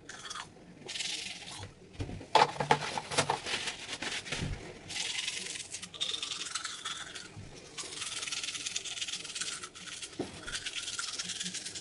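Manual toothbrush scrubbing back and forth over teeth fitted with metal braces: a rapid scrubbing hiss in spells broken by short pauses.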